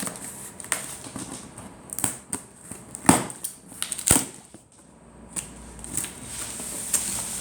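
A large cardboard shipping box being handled and opened: scattered rustles, scrapes and clicks, with two sharper snaps about three and four seconds in.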